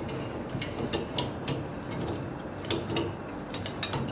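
Irregular light clicks and small knocks of parts and tools being handled on a workbench, a dozen or so scattered through the few seconds.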